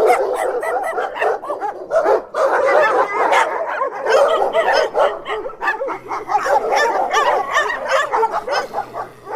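Dog barking and yelping in a rapid, almost unbroken stream of high-pitched calls.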